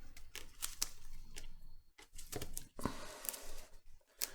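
Battery adhesive under an iPhone 7 battery crackling and tearing as it is pulled and worked loose, with irregular small clicks and scratchy rustles; the adhesive is stuck fast and not coming away.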